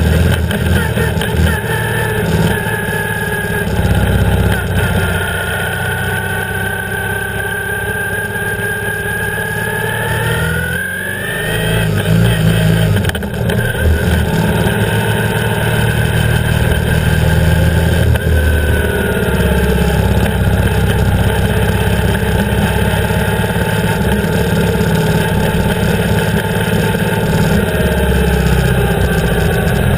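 BMW R 1150 GS's air/oil-cooled boxer twin engine running while riding, heard close to the engine with wind and road noise. Its pitch rises and falls with throttle, with a brief dip in level and a rising note about eleven seconds in.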